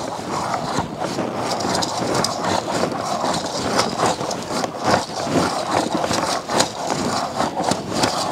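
Plastic slime mixer being worked fast with slime inside: a steady rattling and scraping, full of small clicks.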